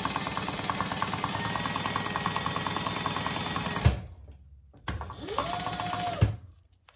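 Sewing machine stitching a seam through four layers of fabric, batting and insulated lining. The motor whine is under a rapid, even rattle of needle strokes. It stops with a thump a little before halfway, then runs again briefly, its whine rising and falling.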